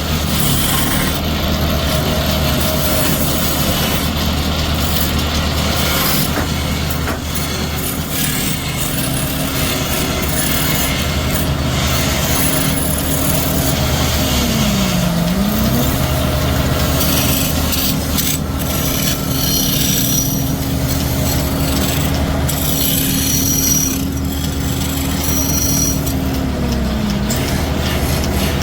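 Woodworking sounds of wood being cut or worked against a running machine. The machine's motor hum dips in pitch and recovers about halfway through, as if briefly loaded, then drops near the end.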